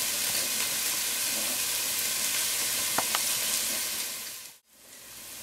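Chopped onion and minced garlic sizzling in hot olive oil in a frying pan as spice paste is added, a steady hiss. Two light clicks come about three seconds in, and the sizzle fades and drops out briefly near the end.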